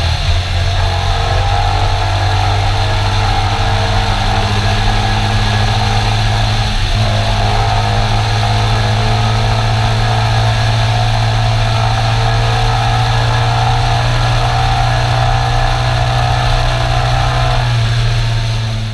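Suzuki DR350's single-cylinder four-stroke engine running at steady revs, heard from a camera suction-mounted on the gas tank, with a brief dip in revs about seven seconds in.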